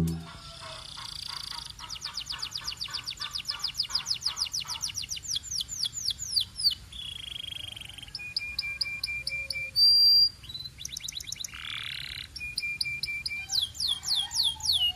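Belgian canary singing: rapid rolling trills of repeated falling whistled notes, broken by runs of short even notes. About ten seconds in comes one brief, louder high whistle.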